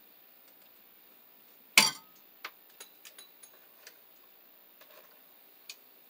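Hand tools and wires being handled at a metal electrical box. A sharp metallic click comes about two seconds in, followed by a scatter of lighter clicks and taps, some with a faint ring.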